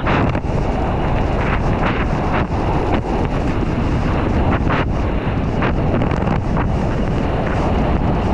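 Wind buffeting a GoPro microphone during a fast ski run, with the hiss and scrape of skis on snow; the noise is loud and steady, with brief surges every second or so.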